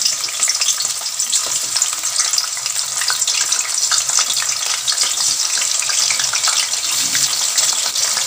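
Marinated fish heads frying in hot mustard oil in a steel karahi: a steady sizzle full of small crackles as the pieces are added one by one.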